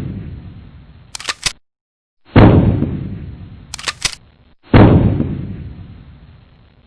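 Dubbed-in fake gunshot sound effects over a toy foam-dart blaster: two booming shots that each die away over about two seconds. Before each shot comes a quick pair of sharp clicks, like a gun being cocked.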